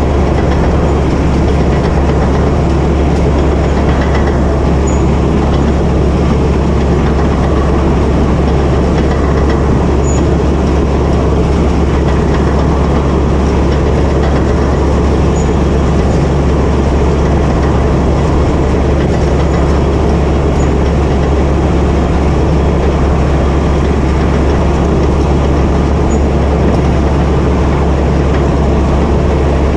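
Cat D8K crawler dozer running steadily under load as it plows snow: the diesel engine's steady low drone together with the running of its steel tracks.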